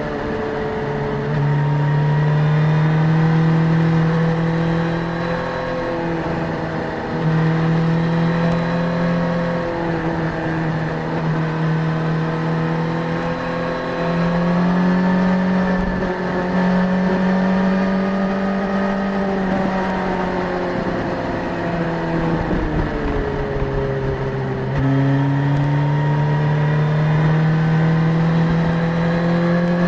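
Suzuki GSX-S1000 inline-four engine running under way at moderate revs, its pitch wavering gently as the throttle changes. The pitch jumps suddenly four times as gears are changed.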